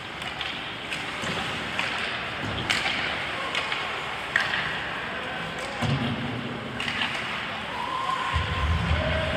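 Ice hockey play: skate blades scraping the ice and sharp clacks of sticks and puck, with a couple of short shouts near the end.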